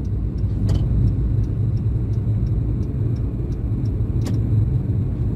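Steady low rumble of a car driving, heard from inside the cabin, with a faint quick ticking and two sharp clicks, one about a second in and one near the end.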